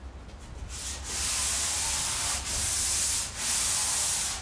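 Sandpaper on a hand sanding block, 220 grit, rubbed in long straight strokes over a bare aluminum fender to give it a brushed finish. The sanding starts about a second in, in strokes of roughly a second each with short breaks between them.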